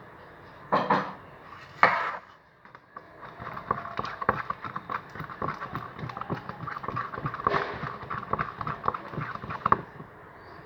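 Borax-activated slime, still not fully set, being mixed, giving rapid irregular sticky clicks that run on for several seconds, after two louder bursts in the first two seconds.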